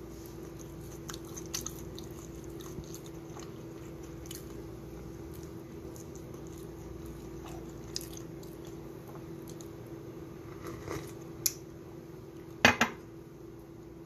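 A steady low hum with scattered light clicks and taps, and a short, louder clatter of two or three clicks a little before the end.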